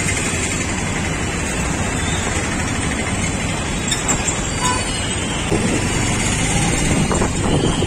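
Heavy road traffic in a slow-moving jam: the engines of auto-rickshaws, trucks and motorbikes running close by, a steady rumble without let-up.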